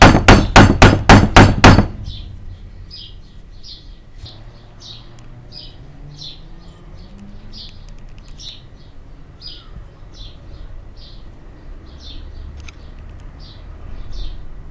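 A rapid run of about eight loud hammer blows in the first two seconds. Then a quieter stretch in which a short, high chirp repeats about once or twice a second.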